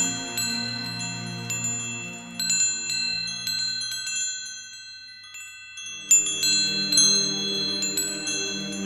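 Koshi wind chimes jingling, many overlapping struck notes ringing out over lower sustained tones. The chiming fades to a brief lull about halfway through, then picks up again with a fresh flurry of strikes.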